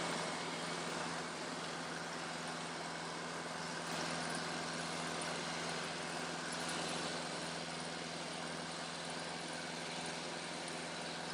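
Tractor engine running steadily while driving a bush hog rotary cutter, a constant drone with no change in pace.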